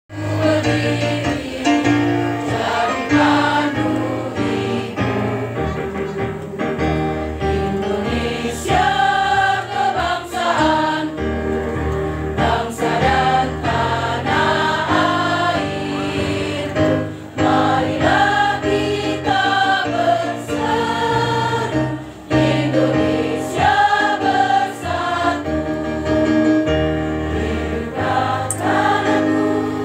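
A women's choir singing a song together in continuous phrases with held notes, with a short break between phrases about two-thirds of the way through.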